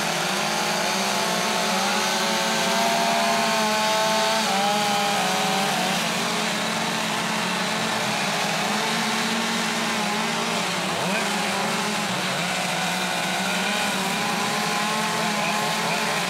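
Several chainsaws with carving bars running at once, their engines revving up and down as they cut into wood.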